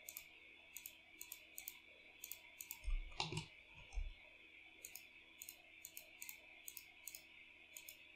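Computer mouse clicking, about two clicks a second, with a couple of low soft thumps around three and four seconds in.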